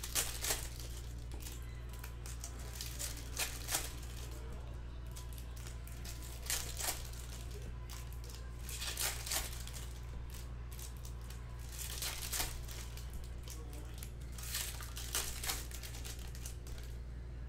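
Trading-card pack wrappers crinkling and tearing in short bursts every few seconds, over a low steady hum.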